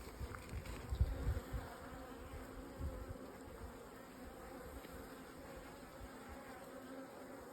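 A colony of native dark European honey bees (Apis mellifera mellifera) humming steadily from an open hive. A few low bumps and rumbles come in the first couple of seconds.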